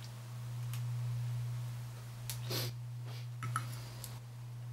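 Steel knife and fork scraping and clicking against a ceramic plate while cutting food: a few light scrapes and clinks, with a sharper click about three and a half seconds in, over a steady low hum.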